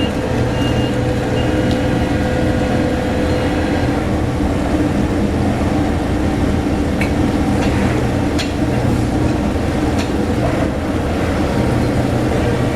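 Steady engine or machinery drone with a few sharp knocks about seven, eight and a half and ten seconds in.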